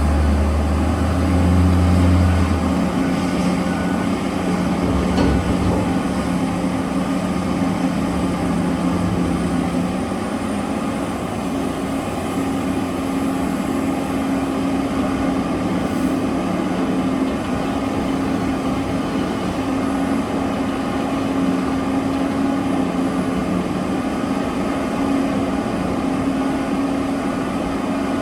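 Diesel engines of heavy mining machinery running steadily. A deeper low drone in the first few seconds drops away, and the engine note changes slightly about ten seconds in.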